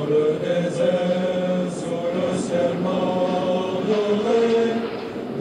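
Background music: a choir singing a slow chant in long held notes.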